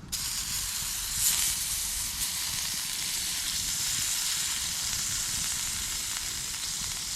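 Food sizzling on a hot cooking surface over a campfire, the sizzle starting suddenly as the food goes on and then holding steady, with a brief louder hiss about a second in.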